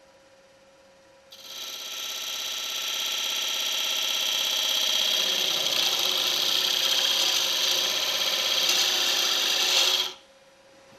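Parting tool cutting into a dark wood blank spinning on a wood lathe: a harsh, pitched scraping that starts about a second in, holds steady for about nine seconds and stops abruptly as the tool comes off the wood. The turner finds the cut doesn't quite feel right.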